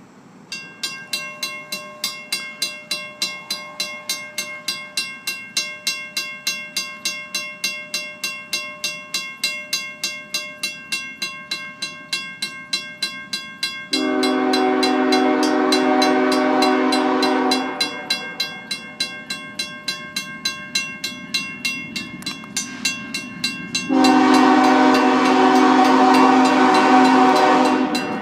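Grade-crossing mechanical bell (Western Cullen Hayes) ringing at about three strikes a second as the crossing signals are activated. A BNSF diesel locomotive's multi-note air horn sounds two long blasts over it, one about halfway through and one near the end, for the crossing.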